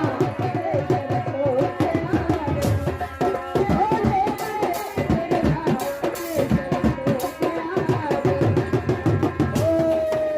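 Instrumental folk music for a nautanki ghazal: tabla and drums played in a dense, fast pattern under a melody line that bends in pitch, ending on a long held note that slides down slightly.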